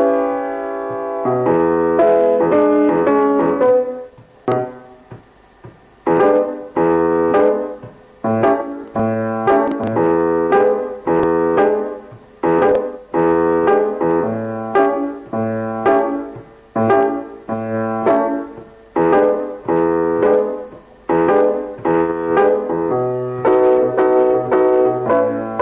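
Piano chords struck one after another and left to ring, about one a second, with a short break about four seconds in.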